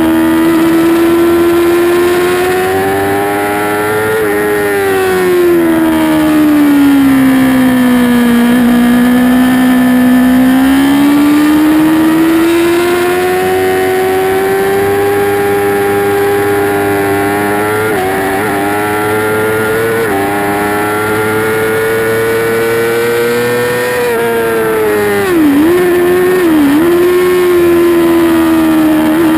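2008 Yamaha R6's inline-four engine at high revs under race throttle, heard from the bike itself in second gear. Its pitch sags to a low about eight seconds in, climbs slowly for the next fifteen seconds, then dips sharply twice near the end before picking up again.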